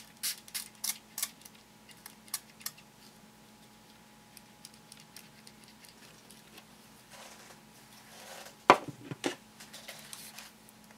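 Small plastic spray bottle spritzing water onto water-fusing craft beads in quick short squirts, about half a dozen in the first few seconds. A sharp knock near the end is the loudest sound, followed by a few lighter clicks.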